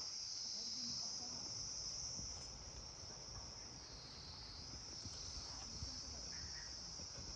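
Insect chorus making a continuous, steady high-pitched chirring.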